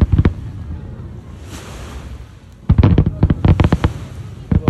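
Fireworks going off: a quick volley of bangs and crackles at the start, then a lull with a brief hiss, then another rapid volley of bangs from nearly three seconds in until near the end.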